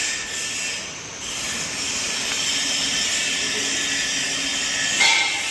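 Steady airy hiss from a small electric cooling fan running, with a faint hum under it and a brief dip about a second in.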